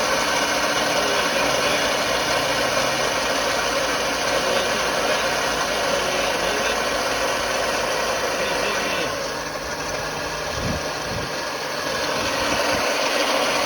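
Car engine idling, its accessory drive belt making a steady noise as it slides around a pulley that is not turning: the pulley is seized, which the owner guesses may be the water pump.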